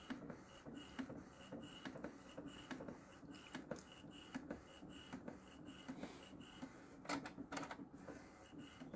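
Epson ET-8550 inkjet printer's mechanism running as it feeds the CD/DVD tray back out after printing a disc: faint, regular ticking, with a brief louder noise about seven seconds in.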